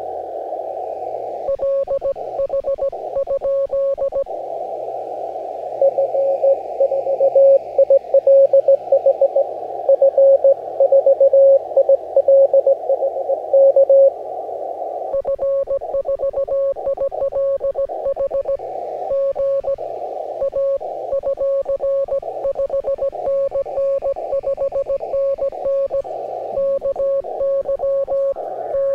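Morse code on an amateur radio transceiver: a steady tone of about 600 Hz keyed in dots and dashes over narrow-filtered receiver hiss. Fainter stations key at lower and higher pitches underneath.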